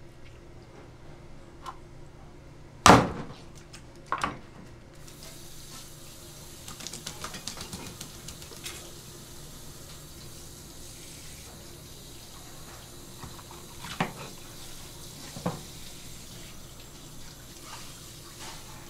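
Two loud sharp thumps of the fish being handled on the plastic cutting board, about three and four seconds in. Then a pull-down spray faucet starts running and hisses steadily over the whole sea bream, with a couple of lighter knocks later on.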